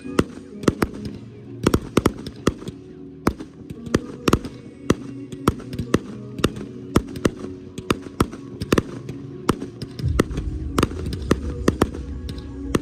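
Fireworks display going off in rapid succession: sharp bangs and pops several times a second. Pyromusical show music plays underneath, and its low end swells about ten seconds in.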